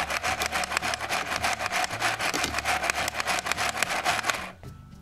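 Toy Black+Decker hand mixer running with its plastic beaters turning in a bowl, making a fast, even clicking rattle; it stops about four and a half seconds in.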